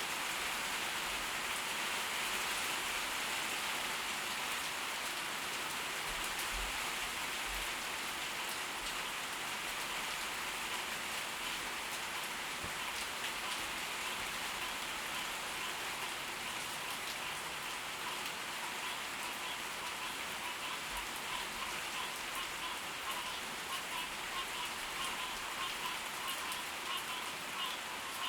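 Steady tropical-storm rain falling on surfaces. About two-thirds of the way through, a rhythmic pulsing call joins in and keeps repeating several times a second.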